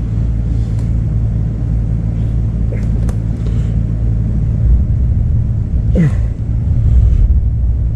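Steady low rumble and hum of a fan blowing air under a lifted truck, with a couple of light clicks of work on the fuel pump lines.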